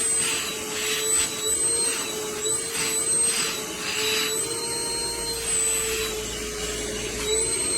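Hart cordless shop vacuum running with a steady motor whine. Several surges of rushing air come in the first half as it sucks up debris.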